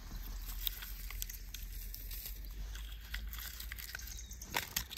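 Dry pine needles and twigs rustling and crackling as a hand reaches in among them and picks up a small toy car: scattered light crackles, a little louder near the end, over a steady low rumble.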